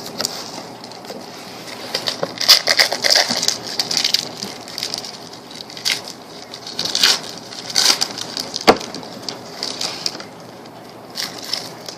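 Trading-card packaging being torn open and handled: irregular bursts of crinkling and crackling, with a couple of sharp snaps, about 6 and 9 seconds in.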